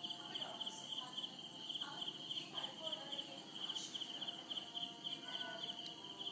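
Crickets chirping: a steady, rapidly pulsing high trill.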